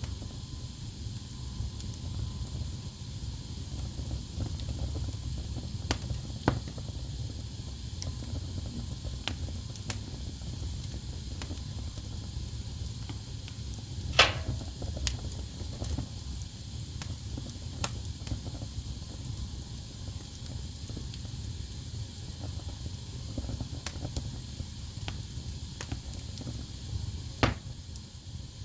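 Wood fire burning in a fireplace: a steady low rumble of flame with a soft hiss, and scattered sharp crackles and pops from the logs, the loudest about halfway through.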